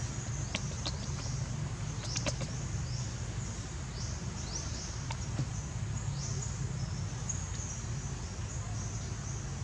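Outdoor ambience: short, high, falling chirps repeating about once a second over a low steady hum, with a few sharp clicks in the first couple of seconds.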